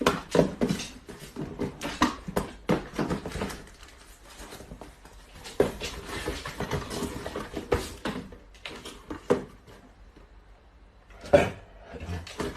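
Irregular knocks, taps and clatter, loudest at the start and again about eleven seconds in.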